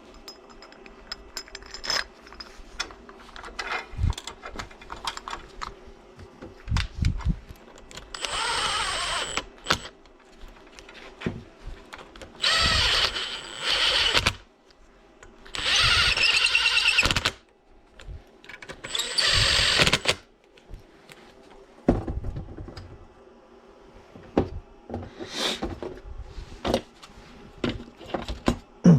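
A power tool run in four short bursts of about a second to a second and a half each, with clicks and knocks of handling between them.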